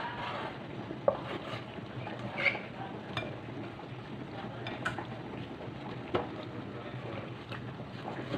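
Chinese cleaver knocking sharply on a thick wooden chopping board a handful of times while slicing raw pork heart, over a steady low background hum.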